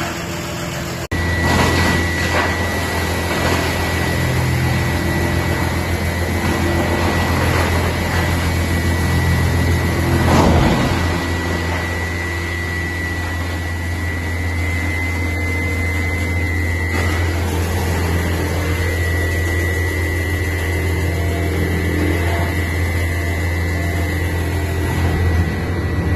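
Wood chipper running steadily, its engine note low with a constant high whine over it. Irregular noisy bursts come through in the first ten seconds or so, heaviest about ten seconds in, as material goes through the chipper.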